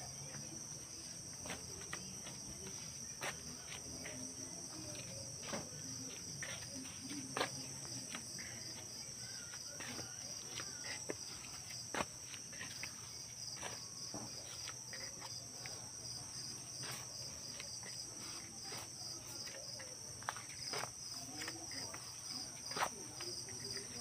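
Crickets calling in a steady high chorus, one of them in fast, even pulses, with scattered clicks and knocks from handling close by.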